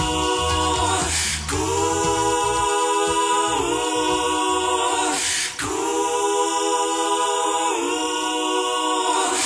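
Background music: wordless voices singing held chords a cappella, shifting chord every few seconds, with a low bass under the first couple of seconds.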